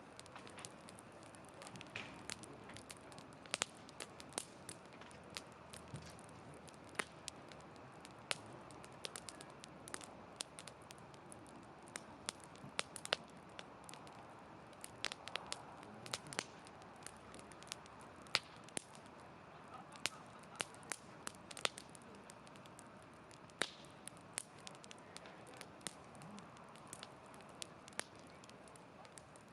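Wood campfire crackling: irregular sharp pops and snaps, a few every second, over a faint steady hiss of burning.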